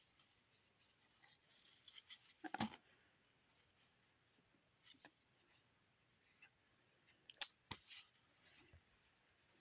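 Faint sliding and rustling of trading cards handled in gloved hands, with a few sharp clicks; the loudest handling comes about two and a half seconds in and again near seven and a half seconds.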